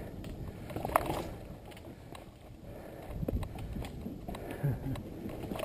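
Mountain bike rolling along a dirt trail: steady tyre and riding noise, with a few sharp knocks and rattles as the bike goes over rough ground.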